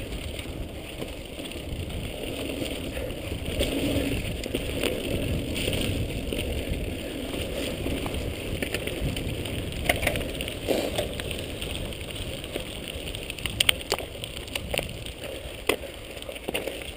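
Mountain bike riding over a dirt trail and then a gravel track, heard from a handlebar-mounted camera: steady tyre rumble, rattling and wind on the microphone, with scattered clicks and knocks in the second half as the bike slows.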